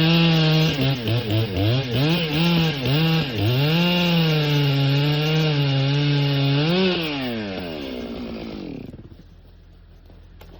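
Stihl chainsaw cutting into a big poplar at full throttle, its engine pitch dipping again and again as the chain bogs in the wood. About seven seconds in the throttle is released and the engine winds down over a couple of seconds, leaving a much quieter last stretch.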